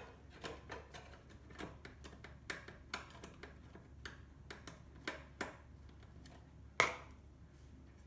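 Irregular light clicks and ticks of a screwdriver turning a screw out of an espresso machine's stainless-steel housing, with one louder click near the end.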